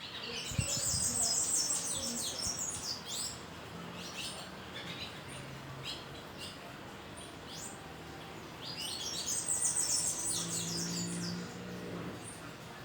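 Wild birds singing: two long runs of rapid, high chirping notes, one starting about a second in and one around ten seconds in, with scattered single chirps in between.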